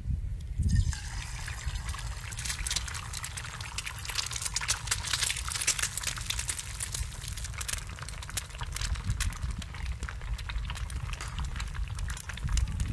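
An egg dropped into hot oil in a frying pan, starting to sizzle and spit about a second in; the fine crackling sizzle of the frying egg then goes on steadily over a low rumble.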